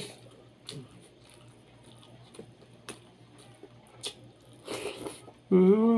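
Close-miked eating sounds: scattered wet clicks and mouth smacks from chewing boiled chicken, a short noisy rush about five seconds in, then a voiced hum that falls in pitch near the end.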